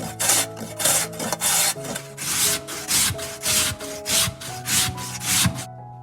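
Rhythmic rasping, rubbing strokes, about two a second, that stop shortly before the end, over a bed of steady held musical tones.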